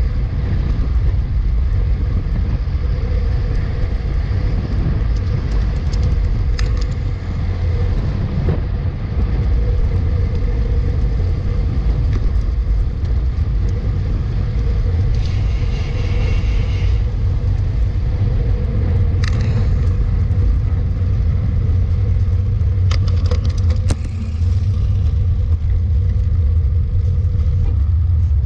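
Steady wind rumble on the camera microphone of a moving road bike, with road traffic underneath, a few light clicks and a brief higher-pitched sound about halfway through.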